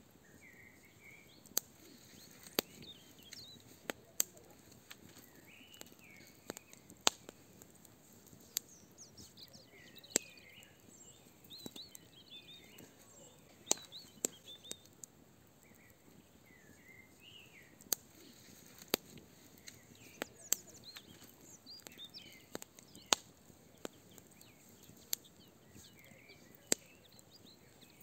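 Barbecue fire burning, crackling with sharp, irregular pops. Birds chirp and sing throughout.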